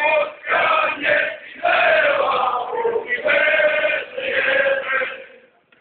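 A crowd of men singing together in unison, holding long notes, fading out just before the end.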